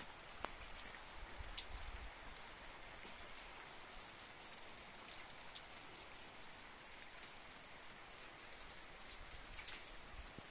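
Faint steady rain falling, with many small drop ticks scattered through it and a low rumble in the first couple of seconds.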